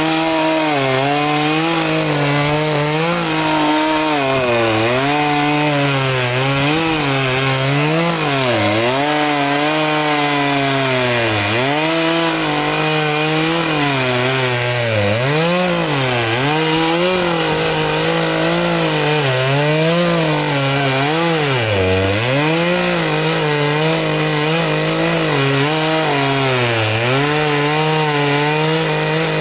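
Two-stroke chainsaw running at high revs and cutting up a fallen pine tree. Its engine pitch dips sharply every second or two as the chain bites into the wood and bogs under load, then climbs back.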